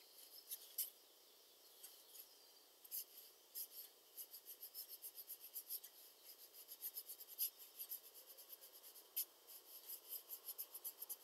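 Fine watercolour brush flicked across paper in quick short strokes: a faint dry scratching, several strokes a second, growing busier about three seconds in.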